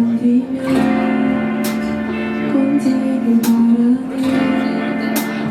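Live music: an acoustic guitar strummed in steady strokes under a held, slightly wavering melody line.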